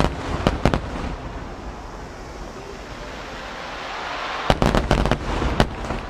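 Twelve-inch (size 10) aerial firework shells bursting in rapid volleys. A cluster of about four sharp bangs comes at the start, then another of about five bangs some four and a half seconds in, with a hiss building between them.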